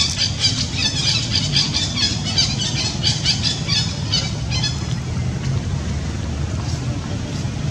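Baby macaque crying in rapid high-pitched squeals, several a second, which stop about two-thirds of the way in. A steady low engine-like rumble runs underneath.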